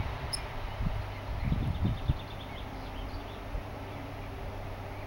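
Low rustling and a few soft thumps, with one brief high-pitched squeak about half a second in and a faint run of quick ticks around two seconds in.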